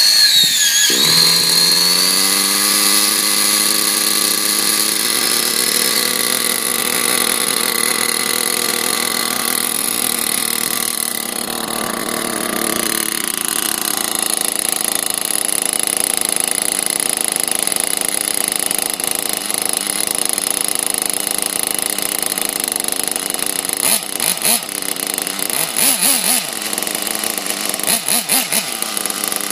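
Nitro glow engine of a 1/8-scale Losi 2.0 buggy that has just fired on the starter box. It is high-pitched and buzzy, rises in pitch and settles over the first couple of seconds, then runs steadily. About 24 seconds in the running turns uneven, with short interruptions.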